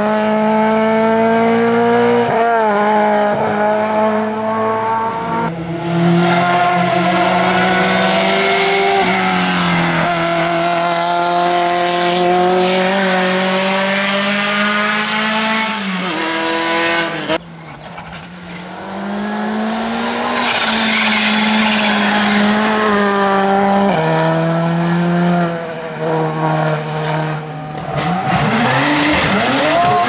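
Hill-climb race car engines at full throttle, revving up and dropping in pitch at each gearshift, one car after another. There is a short lull about 17 seconds in before the next car is heard.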